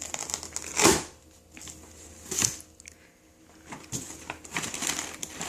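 Crinkling and rustling of snack packaging being handled, with two louder crackles about a second and two and a half seconds in.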